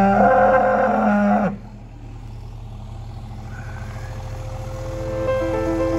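A cow moos once, a long call of about a second and a half that rises in pitch at the start and drops away at the end, over a low steady rumble. Soft piano music then fades in and grows louder near the end.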